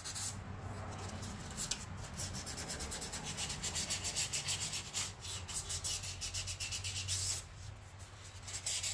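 Sandpaper rubbed by hand over the poured babbitt bearing surface in a Franklin connecting rod to blend in the scraped high spots: quick back-and-forth rubbing strokes, several a second. The strokes stop about seven seconds in, then briefly start again near the end.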